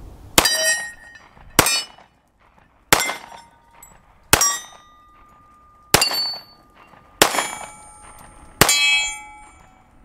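Seven .45 ACP shots from a Sar K2-45C all-steel pistol, fired at a steady pace about one and a half seconds apart. After each shot a steel target rings briefly.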